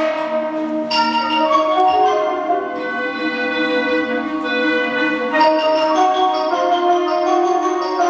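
Concert wind band playing held chords with mallet percussion ringing over them; new notes and chords enter about a second in and again about five and a half seconds in.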